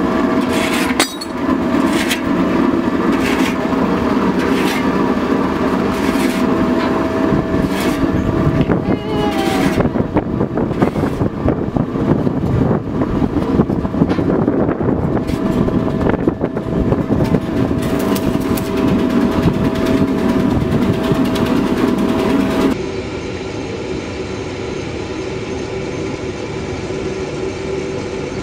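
The drive of a rotary tyre pyrolysis reactor, an electric motor turning a belt pulley, a reduction gearbox and the reactor's ring gear, running with a steady whine and irregular metallic knocks and clanks. About 23 seconds in it cuts to a quieter, steadier machinery hum.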